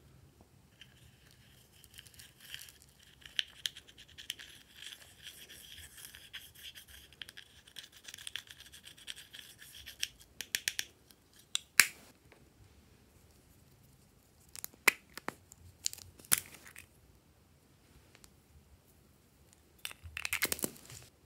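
A thin stick scraping pressed blush powder out of a plastic makeup compact: quick, fine scratching for several seconds. A few sharp taps and clicks follow, and a brief flurry of plastic clicks comes near the end.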